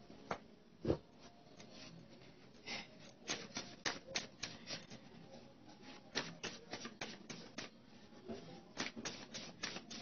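Tarot cards being shuffled and handled: a run of sharp, irregular clicks and snaps in quick clusters, with a heavier thump about a second in.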